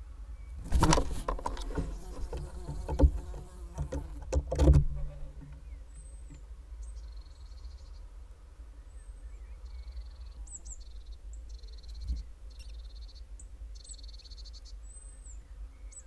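Barn owl scuffling and bumping about inside a wooden nest box, with loud knocks and rustling for the first few seconds. From about six seconds in, newly hatched barn owl chicks give thin, high-pitched cheeping in short repeated runs over a steady low hum.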